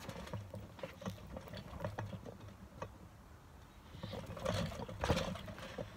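Soft thumps and rustling of feet and hands on a trampoline mat during a cartwheel, with the loudest thump, the landing, about five seconds in.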